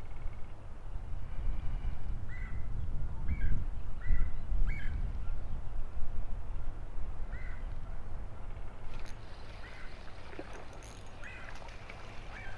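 Geese honking, a series of short calls a second or more apart, over low wind rumble on the microphone.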